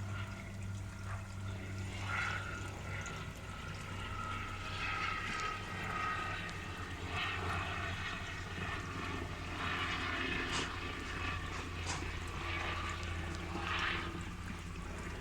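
Water trickling and splashing in a garden koi pond over a steady low hum.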